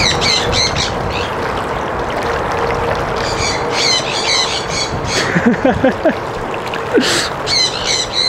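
Birds calling in quick series of high, curling chirps, in three bursts: one at the start, one about three to four seconds in and one near the end. Under them, steady wind buffets the microphone.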